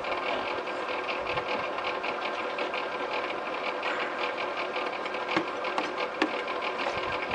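Electric blower on a coal forge running steadily, a whir with a fast fine rattle. A few light clicks come in the second half.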